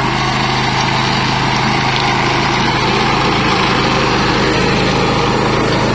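Robotic lawn mower's 13-horsepower Tosaka gasoline engine running loud and steady as the mower drives through tall grass.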